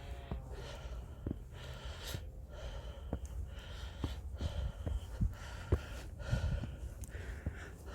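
A hiker's heavy breathing from climbing uphill: repeated noisy breaths over a low rumble.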